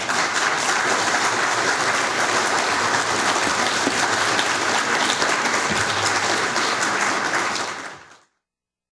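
Audience applauding, steady and loud, then fading away about eight seconds in.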